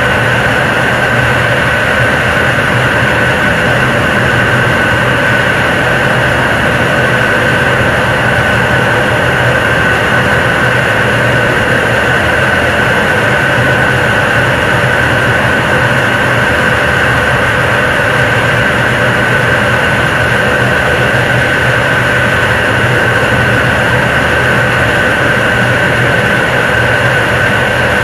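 Nuri third-stage 7-tonne-class kerosene and liquid-oxygen rocket engine in a sustained test firing on an altitude-simulation stand: a loud, unbroken rushing roar with a steady high whistle-like tone running through it. The steady, unchanging sound is that of a stable long-duration endurance burn.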